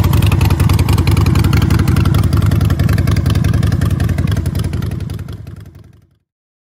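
Harley-Davidson Seventy-Two's 1200cc fuel-injected V-twin idling steadily through Vance & Hines aftermarket exhaust pipes, with a rapid, even pulse. The sound fades out about five seconds in.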